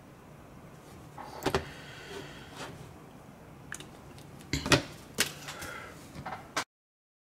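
Card and hobby tools being handled on a workbench cutting mat: a few light taps and clicks, the loudest about four and a half to five seconds in. The sound then cuts off suddenly.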